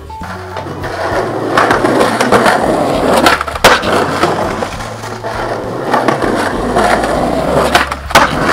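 Skateboard wheels rolling on concrete in a steady rumble, with a couple of sharp clacks about halfway through. Near the end an ollie: the sharp pop of the tail and the clack of the board landing.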